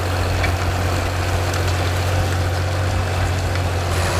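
A 1961 John Deere 4010 tractor's petrol six-cylinder engine running steadily.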